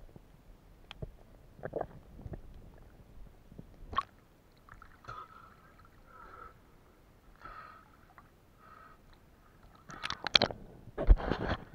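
Water gurgling and sloshing, with scattered small knocks, and a burst of louder splashing near the end.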